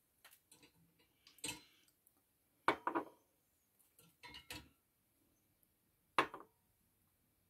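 Small nail polish bottles set down one after another on a hard desk top, several short clinks and knocks, the loudest about six seconds in.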